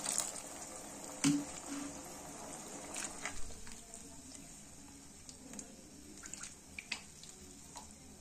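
A pour of water into a pan of keema curry ending at the very start, then a wooden spatula stirring the watery gravy: soft squelches of liquid and scattered light knocks against the pan, the loudest about a second in.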